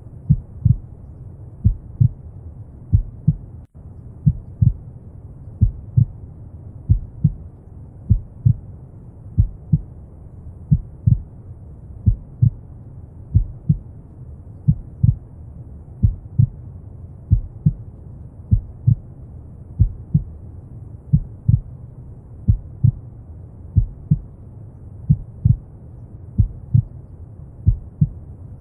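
Recorded human heartbeat, slow paired lub-dub thumps about one pair every second and a half, over a steady bed of brown noise.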